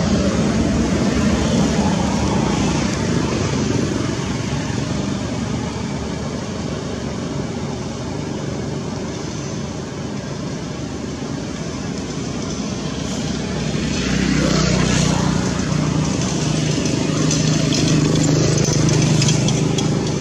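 Steady motor traffic noise, an engine rumble that grows louder with a steady low hum about two-thirds of the way in as a vehicle runs close by.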